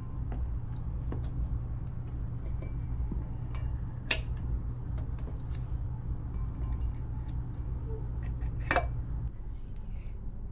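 Toiletries being handled on a bathroom counter: a toothpaste tube and toothbrushes moved around a stainless steel tumbler, giving scattered light clinks and knocks, with two sharper knocks about four seconds in and near nine seconds. A steady low hum runs underneath.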